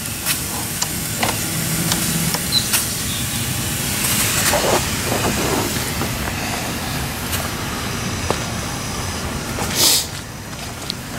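Steam hissing steadily from a 7½-inch-gauge Clishay live steam logging locomotive standing under steam, with scattered small clicks and a short, louder rush of hiss just before ten seconds in.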